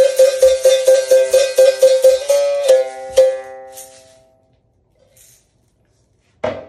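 Berimbau struck with its stick in a quick, even rhythm with the caxixi rattling, closing with a few ringing notes that fade out about four seconds in: the exit phrase of a capoeira berimbau rhythm variation. A sharp knock follows near the end.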